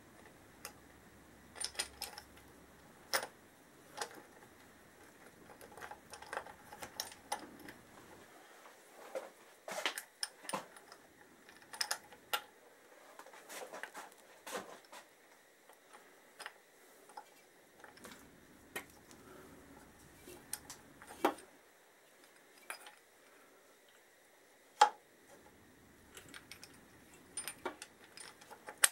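Metal engine parts clinking and clicking as an aluminium cam follower holder and its bolts are handled and seated on a Honda XL1000 Varadero cylinder head, in scattered irregular taps, with one sharper knock near the end.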